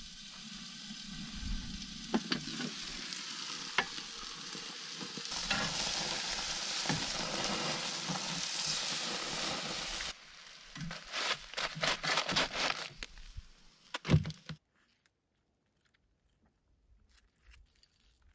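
Burger patties sizzling on a portable gas grill, with a few sharp clicks; the sizzle grows louder about five seconds in and cuts off abruptly near the middle. Scattered clicks and knocks follow, then it goes nearly quiet.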